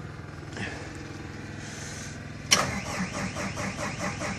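John Deere 310K EP backhoe's diesel engine cold-starting in freezing weather with no glow plugs or starting aids: a steady drone while it cranks, then it catches suddenly about two and a half seconds in and runs with an even beat of about five pulses a second.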